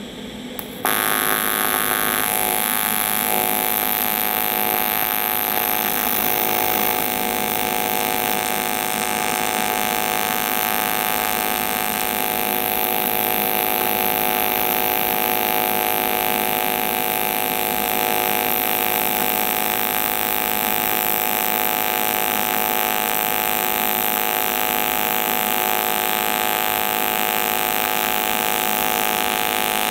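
AC TIG welding arc on cast aluminum, striking about a second in and then holding a steady buzz as the final weld pass is run with filler rod.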